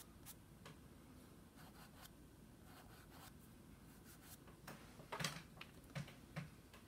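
Faint rubbing and light scratching of a fingertip blending soft chalk pastel into paper, with a slightly louder scuff about five seconds in.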